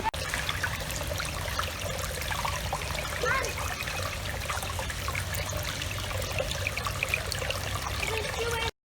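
Shallow creek water trickling and bubbling over rocks, with a steady low rumble underneath; the sound cuts off abruptly near the end.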